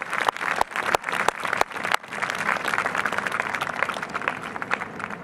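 Crowd applauding, with loud, separate hand claps close by for the first two seconds, then a steadier patter of many hands that slowly dies down.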